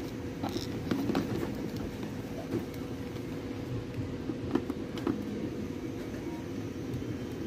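A steady hum, with scattered light clicks and knocks from a multimeter and its test leads being handled and set in place.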